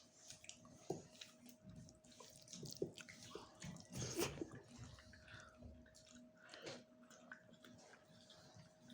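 Faint scattered clicks, taps and small scrapes, the loudest about four seconds in, over a faint steady hum.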